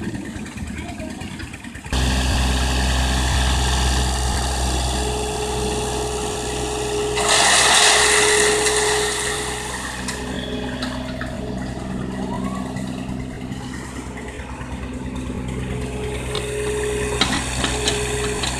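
Hydraulic excavator's diesel engine running under load, getting suddenly louder about two seconds in. A loud rushing hiss lasts about two seconds in the middle, and a few sharp knocks come near the end.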